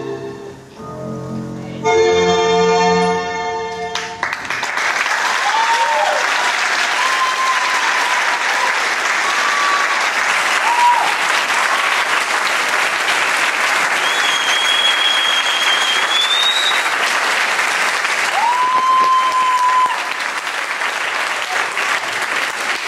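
Recorded tango vals music, piano to the fore, ends on its final chords about four seconds in; then an audience applauds steadily, with several whistles over the clapping, the applause dropping a little near the end.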